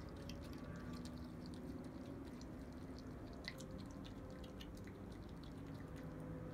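A raccoon chewing grapes: faint, irregular small wet clicks and smacks, over a steady low hum.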